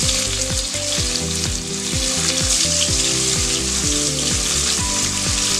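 Pieces of bhola fish, rubbed with salt and turmeric, sizzling in hot mustard oil in a kadai: a steady, dense frying hiss.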